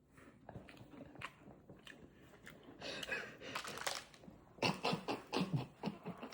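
A person chewing a mouthful of biscuit, quietly, with soft wet clicks and a run of short chewing sounds from about four and a half seconds in.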